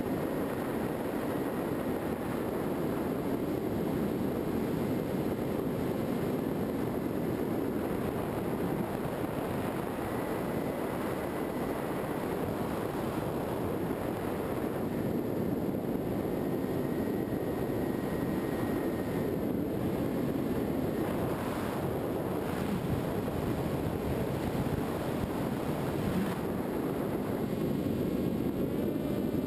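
Onboard sound of a Skywalker FPV model plane in flight: a steady rush of wind over the camera mixed with the hum of its electric motor and propeller. A faint high whine comes and goes a few times.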